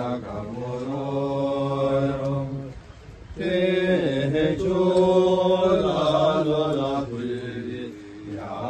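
Male voices chanting in long, held notes, in phrases with short breaks about three and seven seconds in: a traditional Bhutanese archers' chant of the kind that goes with cries of "ki ki so so".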